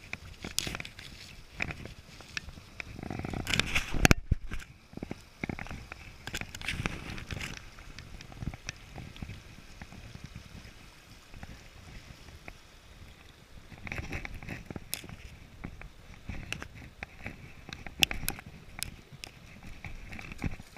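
Shallow river water sloshing and splashing around a landing net and wading legs, over the steady rush of the rapids. Irregular knocks and rustles come from the net and gear handling, with the loudest burst about four seconds in.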